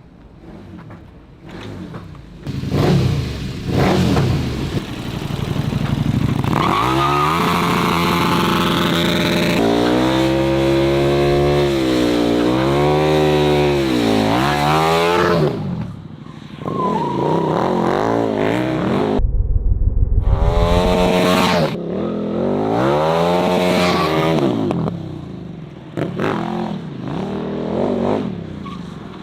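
KTM 1290 Super Duke R's V-twin through an Austin Racing full titanium exhaust, revving and accelerating, its pitch climbing and dropping again and again, with a short deep rumble in the middle.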